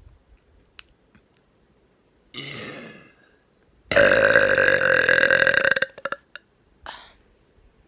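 A long, loud burp of about two seconds, held at a steady pitch, taken close to the microphone. A shorter, quieter sound comes about a second before it, and a brief faint one shortly after.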